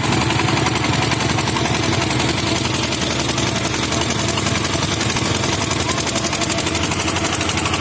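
Boat engine running steadily with a rapid, even putter.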